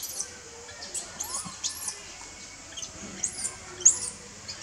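Baby long-tailed macaque screaming in a rapid string of short, very high-pitched squeals, each arching up and back down; the loudest comes near the end.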